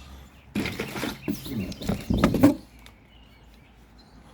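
Rustling and knocking as the kayak cart's parts and packaging are pulled out of the box and handled, for about two seconds, then birds chirping faintly.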